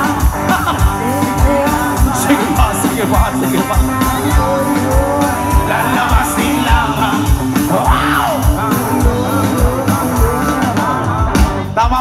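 Live rock band playing loudly through a concert PA: a steady, fast drumbeat under guitars and a singer's voice.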